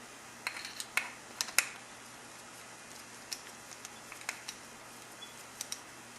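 Scattered light metallic clicks and ticks of a roller chain and chain breaker tool being handled as a link pin is pressed out, several close together in the first two seconds and a few sparser ones after.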